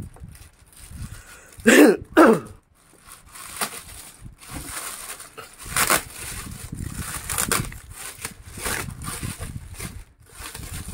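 Thin plastic bag crinkling and rustling with many small crackles as it is pulled off a plastic ice box cooler. About two seconds in come two short, loud vocal calls, each falling in pitch.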